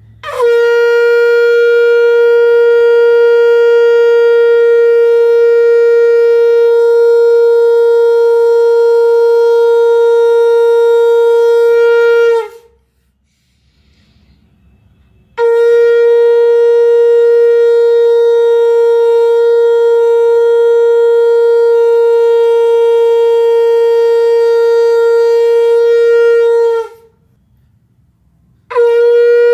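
Conch shell (shankh) blown in long, loud blasts, each held on one steady pitch for about twelve seconds after a brief upward slide as it starts. There are two full blasts with a pause of a few seconds between them, and a third begins near the end.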